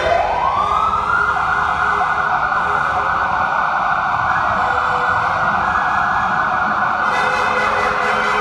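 Siren-type novelty car horn wailing: its pitch sweeps up at the start, then holds steady for several seconds, with more high horn tones joining about seven seconds in, over the rumble of car engines in a ferry's enclosed car deck.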